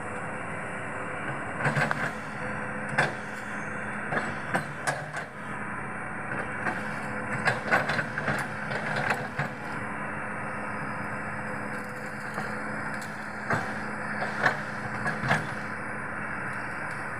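Hitachi PC210F excavator's diesel engine running steadily while wood cracks and splinters in sharp snaps at irregular moments as trees and branches are broken and pushed over.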